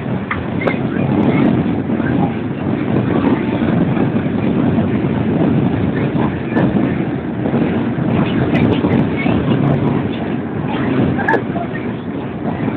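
Steady cabin noise of a Boeing 737 airliner in flight on approach: the engines and rushing airflow make an even, dense noise, heard through a phone's microphone.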